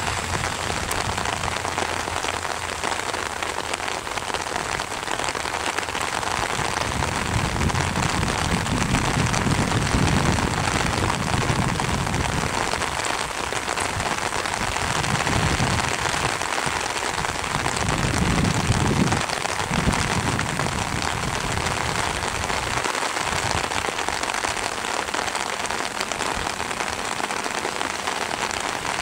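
Steady heavy rain pattering on an umbrella held over the microphone. A few low rumbling buffets of wind hit the microphone partway through.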